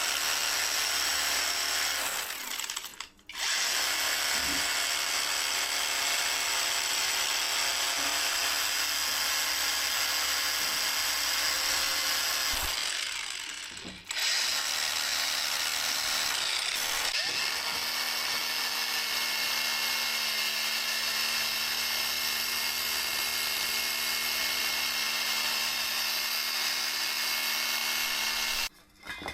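A power tool running steadily in long stretches, cutting out briefly twice and stopping near the end.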